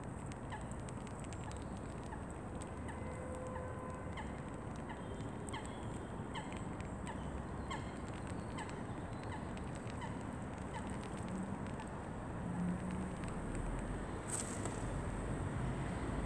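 A regular series of short, falling animal chirps, about one and a half a second, over a steady background hiss; they die away about halfway through, and a single sharp click sounds near the end.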